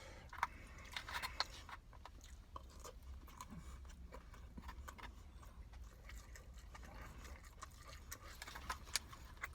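Faint chewing of chicken biryani with scattered small clicks and smacks, over a steady low hum.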